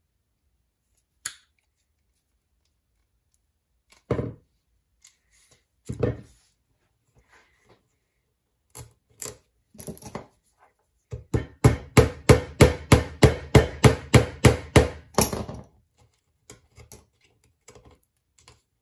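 A handheld wire-rope coil wound on plastic pipe being worked against a wooden worktop. A few separate knocks come first, then a rapid, even run of about twenty knocks, some five a second, for about four seconds.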